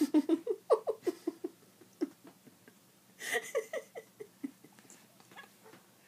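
Soft, breathy laughter in quick short bursts, in two bouts: one at the start and another about three seconds in.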